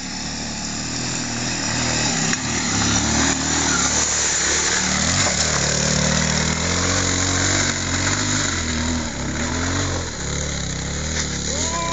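Enduro dirt bike engine revving hard under load as it climbs a steep, loose hill, its note rising and falling with the throttle. It grows louder over the first few seconds as the bike nears.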